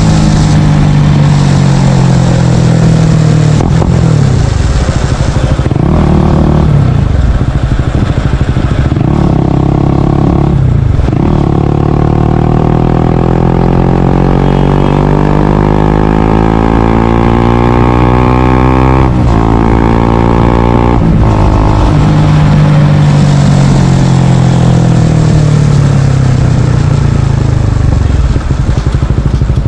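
Small single-cylinder Honda CBR motorcycle engine running through a Yoshimura R77 full exhaust system, loud throughout. Its pitch rises and falls: a long steady climb over several seconds, a sudden drop about two-thirds of the way through, a short climb and another drop, then it settles and falls away near the end.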